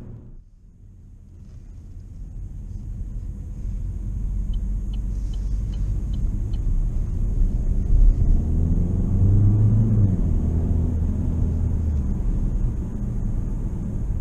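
Cabin sound of a 2021 Opel Grandland X driving: its 1.5-litre turbodiesel four-cylinder engine and road rumble, fading back in after a sudden dip at the start. A short run of faint ticks comes about five seconds in. The engine drone grows louder from about eight seconds in and eases off around ten and twelve seconds.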